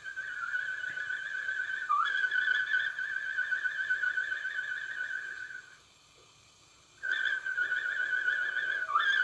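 A man whistling one long, high, slightly wavering note through pursed lips. The note dips and restarts about two seconds in, breaks off for about a second past the middle, then resumes with another quick dip near the end.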